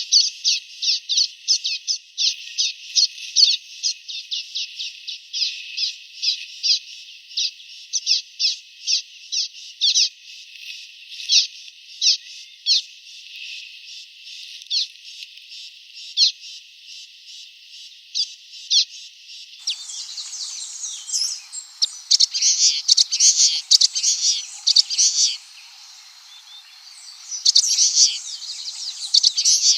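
Common waxbill chirping: a rapid series of short, high chirps. About two-thirds of the way through, the sound changes to fuller, denser chattering in bursts.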